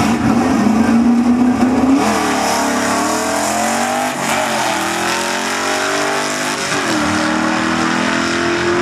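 Ford drag car's engine held at high revs on the starting line, then launching about two seconds in and accelerating hard down the strip. The pitch climbs, drops at gear shifts around four and seven seconds in, and climbs again.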